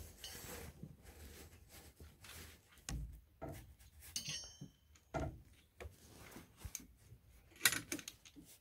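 Hand tools and metal engine parts being handled while tightening an alternator belt adjuster: scattered light clicks and knocks, with a brief metallic ring about four seconds in and a sharper click near the end.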